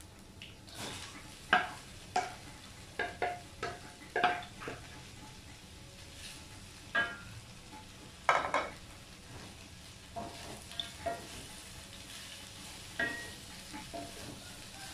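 Sliced okra being stir-fried in a wok with a wooden spatula: the spatula knocks and scrapes against the wok in irregular ringing clacks over a light sizzle.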